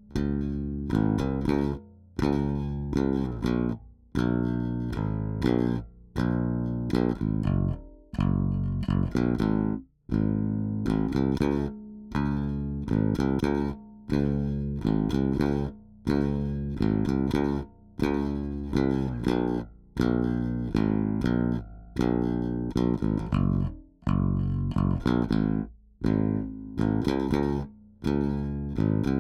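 Warwick Vampyre SN-5 five-string bass with active MEC pickups, neck and bridge pickups blended equally and the treble and bass EQ at centre with no boost, played as a riff of plucked notes that repeats about every two seconds.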